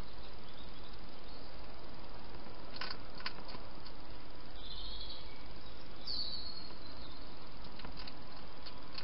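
Steady hiss from a trail camera's microphone, with a few faint clicks about three seconds in and two short high chirps around five and six seconds in.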